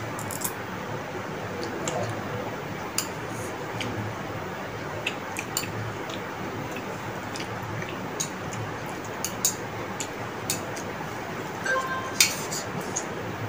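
Metal chopsticks clicking and scraping against ceramic plates as two people eat noodles, the sharp clicks coming irregularly over a steady hiss, with the loudest click near the end. Noodles are slurped and chewed in between.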